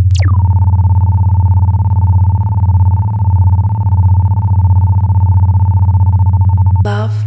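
Electronic soundtrack: a synthesizer tone sweeps quickly down in pitch, then holds a steady high tone over a low pulsing bass drone. It cuts off about seven seconds in with a short falling burst.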